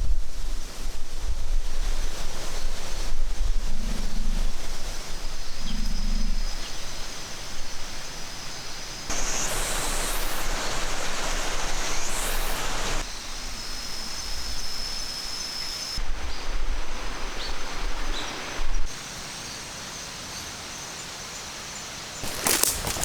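Outdoor ambience: wind gusting on the microphone with a steady noisy hiss, the level stepping up and down abruptly several times.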